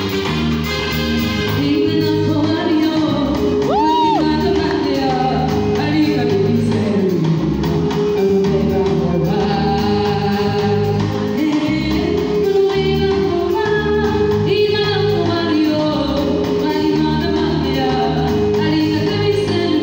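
A woman singing live into a microphone over musical accompaniment, amplified through the stage speakers.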